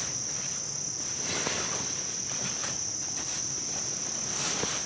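Steady, high-pitched trilling of insects, one unbroken tone, with a few faint rustles of nylon hammock fabric being handled.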